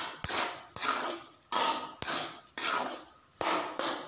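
Spatula scraping and stirring a dry, crumbly goat blood and onion fry around a metal kadai, in repeated strokes, about one and a half a second, each a sharp scrape that fades away.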